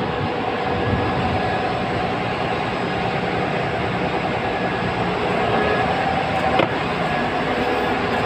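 Steady mechanical drone of ship's machinery, a low rumble with a few faint steady tones over it, and one short click about six and a half seconds in.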